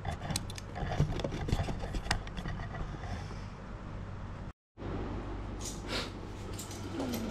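Handling noise from a Knipex Cobra pliers wrench being taken off a bicycle axle nut and moved about: a run of light metal clicks in the first two seconds and a few more near the end, over a steady low hum. The sound cuts out completely for a moment about four and a half seconds in.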